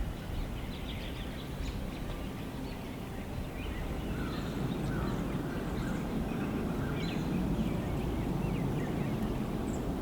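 Woodland ambience: a steady low wind rumble that grows a little louder about halfway through, with a few faint, scattered bird chirps.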